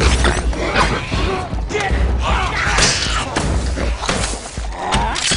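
Action-film fight sound effects of giant metal robots grappling: a rapid series of heavy thuds, slams and metallic crashes with a deep low rumble under them.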